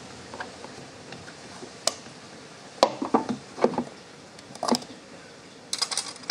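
Irregular knocks and clicks as a hose is worked off the bottom of a coolant overflow bottle, with a quick cluster of sharp clicks near the end.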